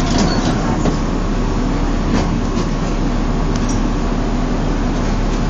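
Tatra T3 tram running along the track, heard from inside the passenger car: a steady rumble of wheels and running gear with a few light clicks and rattles.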